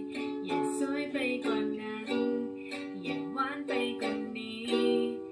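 Ukulele strumming chords in a steady rhythm, the chord changing a few times.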